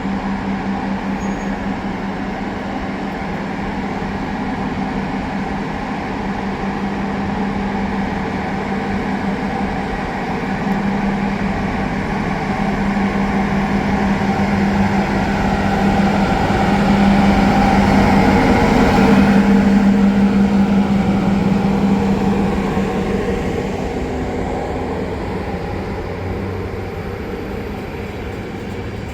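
Romanian 060-EA six-axle electric locomotive hauling a passenger train past, its steady electric hum growing louder to a peak about two-thirds of the way through and then fading.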